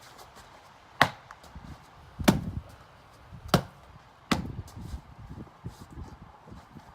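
Dotanuki katana making four sharp chopping strikes at cutting targets, about one every second and a bit, the second one heavier and deeper.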